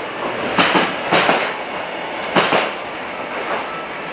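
Freight train's container wagons rolling past at speed: a steady rumble with the wheels clacking over rail joints in quick pairs, three pairs in all.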